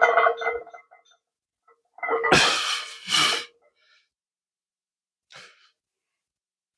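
Two short, forceful bursts of breath from a lifter setting up under a loaded barbell, about two and three seconds in.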